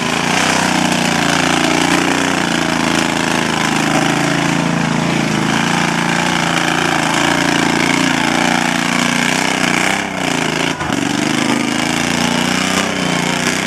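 Small engine of an Al-Ko T14 ride-on lawn mower running hard as it drives through mud, its pitch rising and falling with the throttle. The level drops briefly once near the end.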